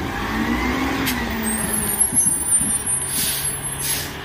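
Rear-loading garbage truck driving on a wet road, its engine running steadily over tyre noise. Near the end there are two short air-brake hisses.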